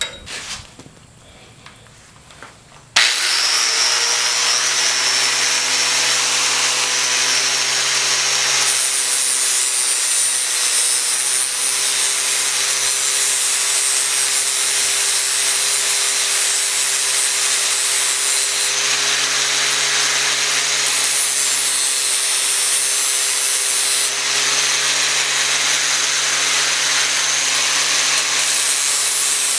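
Angle grinder with a flap disc starts about three seconds in and runs steadily, grinding the sides of a steel punch to shape.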